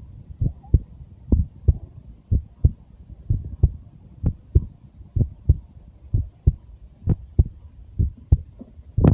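Heartbeat of a 23-year-old person: a steady double thump (lub-dub) repeating about once a second, around 63 beats a minute.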